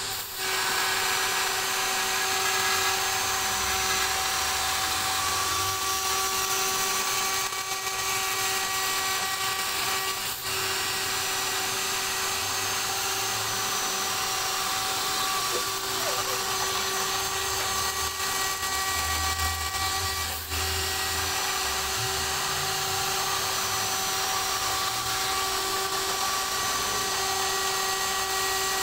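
DIY CNC router spindle running an end mill through a 3 mm milky-white acrylic sheet: a steady high whine over the hiss of the cut.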